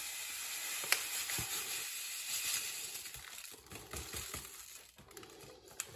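Demerara sugar pouring from its bag into a ceramic mug: a steady, sandy hiss that tapers off about three seconds in, followed by light rustling and ticking from the bag.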